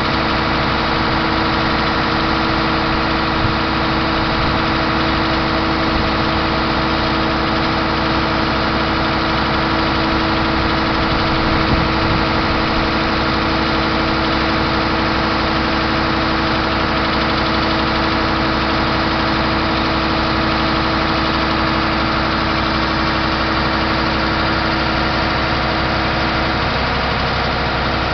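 Mercedes-Benz Actros 3236 truck's diesel engine idling steadily, with a steady hum throughout; one tone in the hum drops out shortly before the end.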